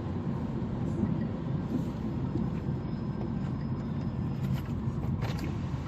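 Car driving at motorway speed: a steady rumble of tyre and engine noise, with a couple of faint ticks near the end.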